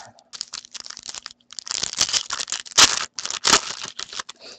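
Foil wrapper of a 2013-14 Panini Select hockey card pack being torn open and crinkled in the hands: a run of crackling rustles, the loudest rips about three seconds in.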